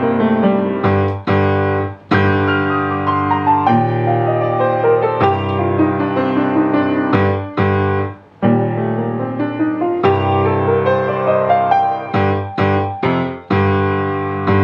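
Grand piano played solo at a brisk tempo: falling and rising runs over repeated chords, with sharp stops about 2 and 8 seconds in and a string of short, detached chords near the end.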